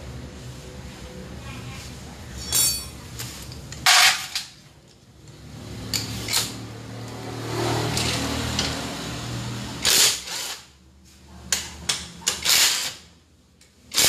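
Cordless impact wrench run in several short bursts on a scooter's rear axle nut, loosening it to take off the rear wheel; the longest run lasts about two seconds, near the middle.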